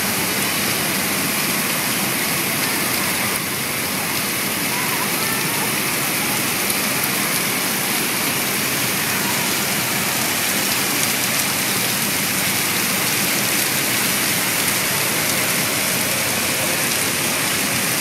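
Water falling down an artificial rock wall and splashing into a koi pond: a steady, rain-like rushing and splashing that dips slightly a few seconds in.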